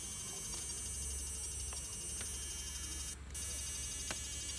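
Electric fish-shocking device's inverter giving a steady, high-pitched electronic whine and buzz while its electrodes are in the water. It cuts out briefly a little over three seconds in, then comes back, with a few faint clicks.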